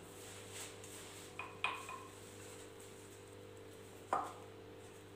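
A few light knocks and clinks against a mixing bowl while pastry dough is gathered by hand: two close together, one ringing briefly, then a single knock, over a faint steady hum.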